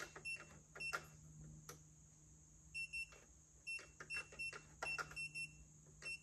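Electronic keypad of a biometric pistol safe beeping as its buttons are pressed, while a new code is entered after a reset: about a dozen short high beeps, each with a small click, in two clusters with a gap of about a second and a half in the middle.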